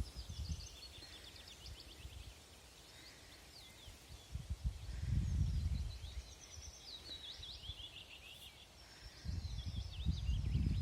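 Small songbirds chirping and trilling in quick high notes throughout, overlapping one another. Bouts of low rumble come in about halfway and again near the end.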